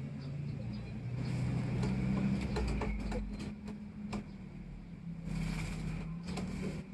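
A motor engine running steadily, its low pitch stepping up and down, with scattered sharp clicks and two brief bursts of hissing rustle.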